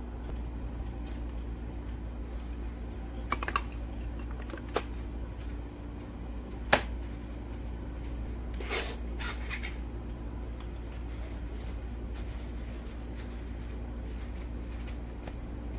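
Scattered small clicks and taps of objects being handled, the sharpest about seven seconds in and a short rattly group around nine seconds, over a steady low hum.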